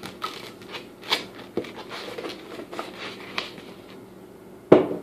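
Plastic bag rustling and crinkling as it is handled, in short irregular bursts, with one sharp knock near the end.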